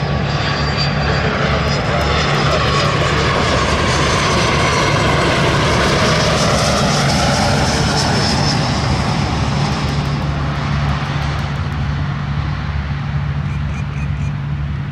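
Gulfstream G450 jet running its twin Rolls-Royce Tay turbofans as it passes while landing: a rushing roar with a whine that bends in pitch, swelling to its loudest about halfway through and then easing off.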